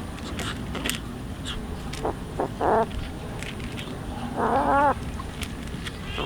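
An animal calling: three short calls in quick succession, then a longer pitched call.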